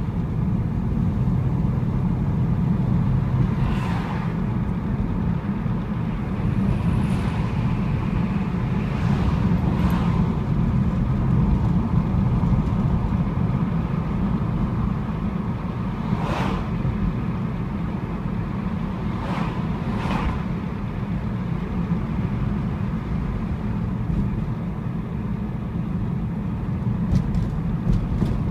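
Classic American car's engine running low and steady while cruising, heard from inside the cabin, with a few brief clicks or rattles.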